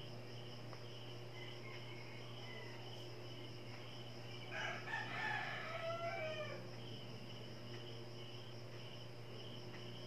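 Crickets chirping in a steady, pulsing trill, with a rooster crowing once about halfway through, its call lasting about two seconds and falling in pitch at the end.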